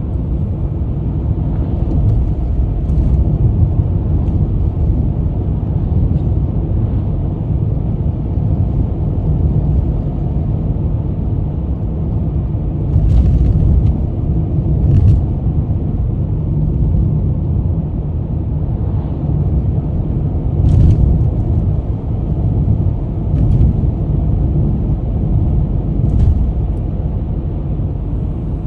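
Steady low rumble of a car driving at road speed, heard inside the cabin: road and engine noise, with a few brief louder bumps.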